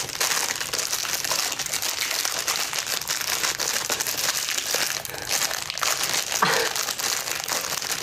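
Plastic instant-noodle flavour sachet being crinkled and worked open by hand: a dense, continuous crackle with many fine clicks.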